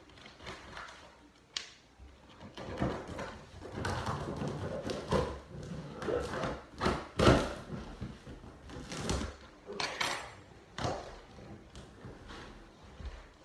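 Large cardboard shipping box being opened and handled: irregular scraping, rustling and dull thuds of flaps and packing, with the loudest knocks in the middle.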